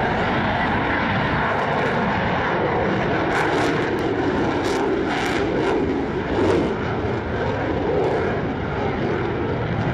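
F/A-18 fighter jet engine noise, a steady dense rush that swells briefly a little past the middle.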